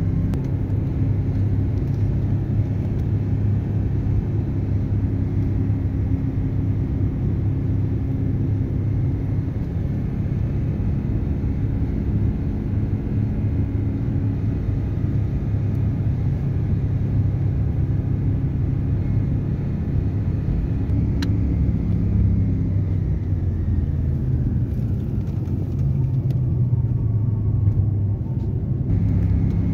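Steady road noise and engine rumble inside a moving car's cabin. A faint whine slowly falls in pitch over the last several seconds.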